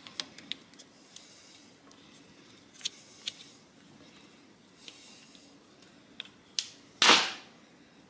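Handheld plastic cable stripper being worked around the insulation of an 8-gauge wire: faint scraping with a few small clicks, then a short, louder rasp about seven seconds in as the insulation gives.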